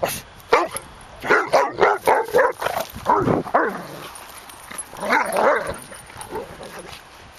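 A dog barking: short, excited barks in quick runs of several a second, with a lull of about a second a little past the middle.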